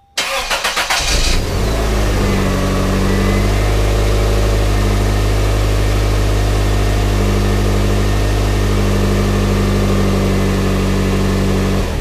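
1997 Toyota Corolla's four-cylinder engine cranked by its freshly rebuilt starter (new plunger and contacts), catching after about a second of cranking and then idling steadily. It is switched off at the very end: the repaired starter now works.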